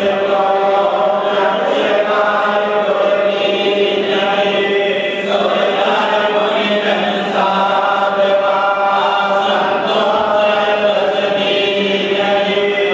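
Devotional aarti sung as a chant by a group of voices through microphones, in long held notes over a steady low drone.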